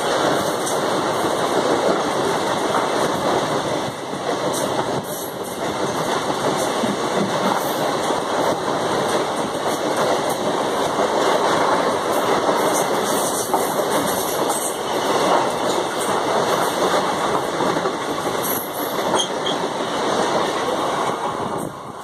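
Indian Railways express passenger coaches rushing past close by on the adjacent track: a steady, loud rush and rattle of wheels on rail with scattered clicks. The noise drops off near the end as the last coach clears.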